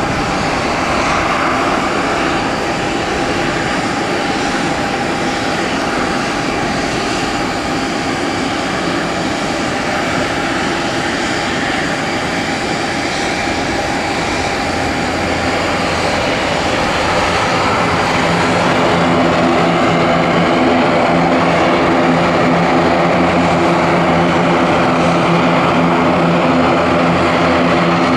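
Aircraft engines running with a steady rush of noise. About two-thirds of the way through it grows louder, and a set of steady low humming tones comes in.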